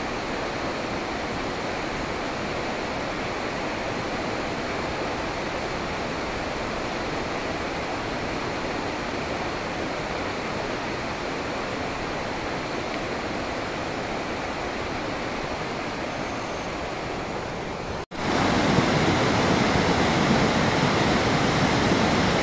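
A muddy river in flood rushing past, a steady noise of fast-flowing water. It cuts out for a moment about 18 seconds in and comes back louder.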